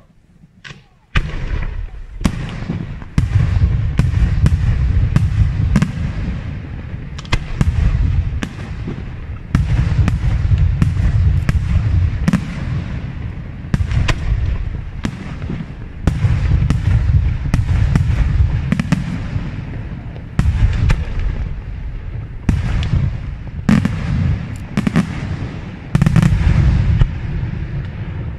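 Aerial firework shells bursting in quick succession, starting about a second in: sharp cracks one after another over a continuous deep booming rumble.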